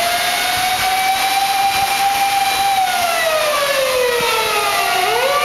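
Sirens of Japanese fire-department emergency vehicles wailing. One tone rises, holds, then slowly falls and starts rising again near the end. A second siren at a different pitch falls alongside it from about three seconds in, over a steady hiss of wet traffic.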